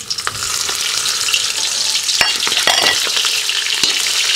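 Hot rendered lamb tail fat sizzling in a kazan with onion skins just added to fry in it. The sizzle swells in the first second and then holds steady, with a few sharp clicks.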